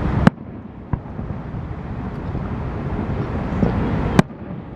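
Outdoor noise at a fireworks show: a steady low rumble with wind on the microphone. Two sharp clicks, about a quarter second in and near the end, are each followed by a sudden drop in level, and there is a fainter crack about a second in.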